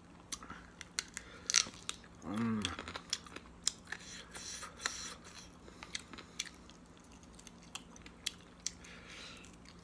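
Close-up eating sounds of a person chewing rice and goat meat: wet chewing and lip smacks with many short sharp clicks, and a brief hummed 'mm' about two and a half seconds in.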